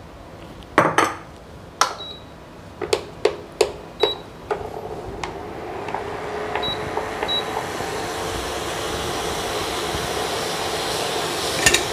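Clinks of a stainless steel puttu pot being set on an induction cooktop, with four short high beeps from the cooktop's controls. From about halfway, a steady hum and hiss grows slowly louder as the cooktop runs and heats the water in the pot.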